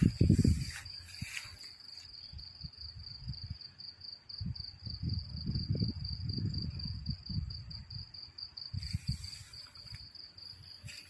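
Crickets trilling, one steady high pulsing trill throughout. Under it, low rumbles and thuds from the phone being handled, and brief rustles of grass near the start and again about nine seconds in.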